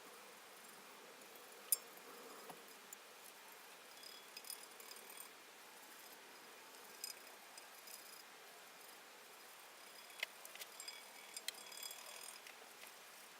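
Scattered light metallic clicks and clinks of small metal parts being handled, one sharper click about two seconds in and a cluster near the end, over quiet room tone.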